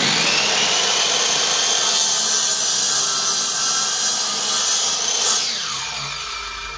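Sliding compound miter saw switched on and running at full speed as its blade is pulled down through a strip of birch plywood. Near the end it is switched off, and its whine falls away as the blade spins down.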